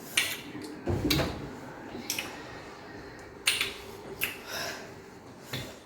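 Eating sounds from a meal of fufu and peanut soup: a series of short, sharp mouth smacks and clicks, with a heavier thump about a second in.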